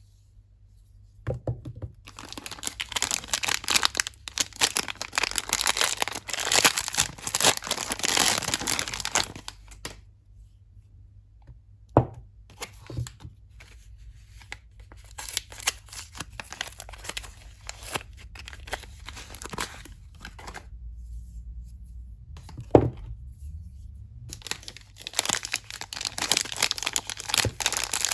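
Soap wrapping being torn open and crinkled by hand, in bouts of rustling and crackling with pauses between and a couple of sharp clicks.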